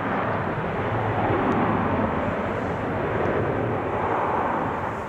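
Boeing 737-800's CFM56-7B jet engines running as the airliner rolls out along a wet runway after landing: a steady rush of jet noise that swells slightly twice.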